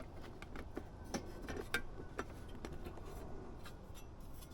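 Light, irregular clicks and taps of heater mounting parts being handled and turned against each other while they are fitted together.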